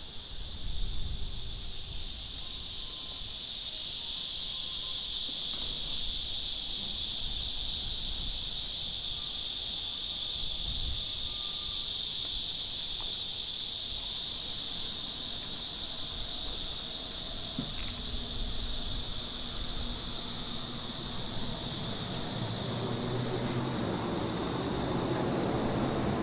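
Dense, steady chorus of cicadas, a high shrill hiss that swells over the first few seconds and eases a little near the end.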